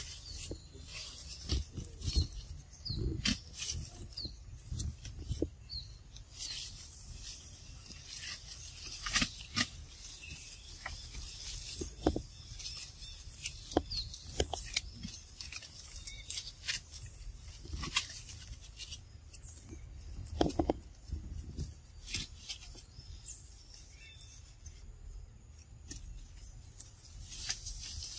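Leaves and branches rustling and snapping as macaques move through a tree, with scattered short high chirps and a low steady rumble underneath.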